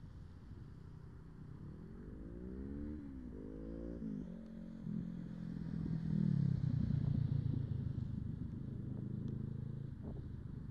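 Motorcycle engine accelerating, its pitch rising twice with a gear change between. It then runs steadily, loudest about six seconds in as the bike passes close by.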